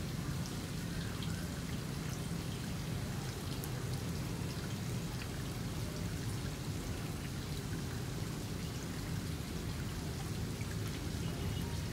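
Water running steadily, with scattered small drips and splashes.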